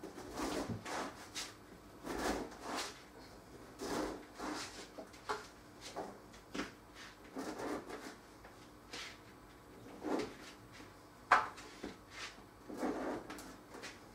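Serrated bread knife sawing through stale, two-to-three-day-old bread on a wooden board: a run of irregular crunchy scraping strokes, with one sharp knock a little after eleven seconds in.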